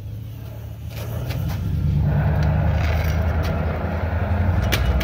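Oxy-acetylene torch flame burning with a steady low rush, which grows louder about a second in as the flame becomes large and yellow. There are a few sharp pops and crackles.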